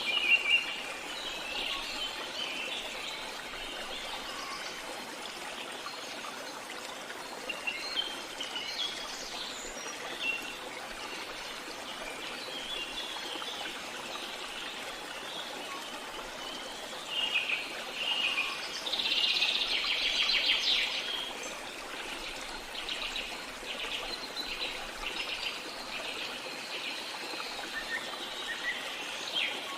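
Several songbirds singing and chirping in short, high phrases, with a louder rapid trill about two-thirds of the way through, over a steady background hiss.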